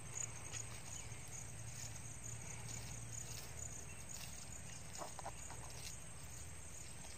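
Faint insect chirping, a steady run of high repeating pulses, over a low steady hum, with a few faint clicks about five seconds in.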